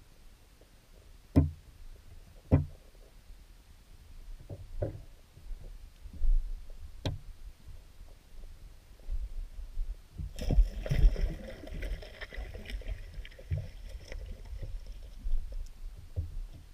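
Muffled underwater sound inside a wire minnow trap in a creek: a low rumble of moving water, broken by a few sharp knocks in the first seconds and another near the middle. Past the middle comes a louder stretch of rattling and hiss that fades over a few seconds.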